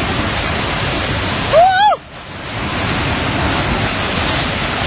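Rushing of a flash flood of mud and water pouring down a hillside, a dense steady roar that drops off sharply about two seconds in and builds back up. Just before the drop there is a brief shout that rises and falls in pitch.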